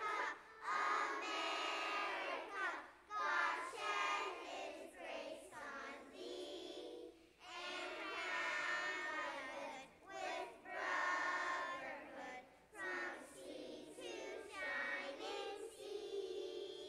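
A group of young preschool children singing a song together, in short phrases with brief breaks between them.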